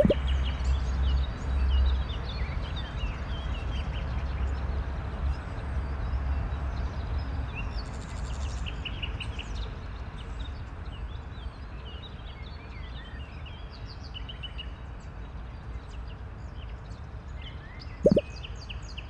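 Outdoor ambience of small birds chirping over a steady low rumble, with a short, loud pop about 18 seconds in.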